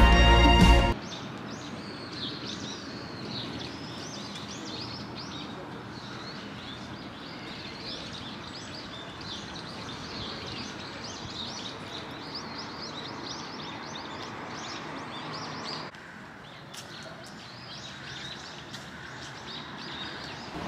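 A brief burst of music cuts off about a second in. After that, many small birds chirp and twitter busily over a steady outdoor background noise. The level drops at a cut near the end, and there are fewer chirps after it.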